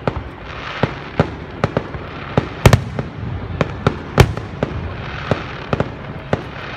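Fireworks going off: an irregular run of sharp bangs and pops, several a second, with two louder booms about two and a half and four seconds in.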